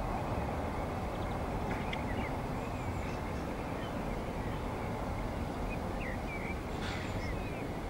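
Steady low rumble of a distant helicopter in flight. Small birds chirp briefly over it, about two seconds in and again near the end.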